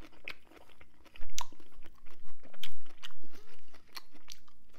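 Close-up chewing of rotisserie chicken and cheese-sauced broccoli: a run of sharp, irregular mouth clicks, loudest in the middle.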